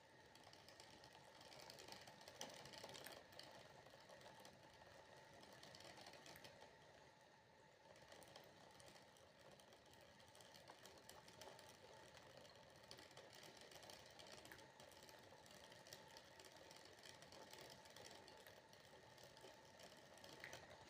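Faint patter of water droplets: a dense, uneven run of tiny ticks.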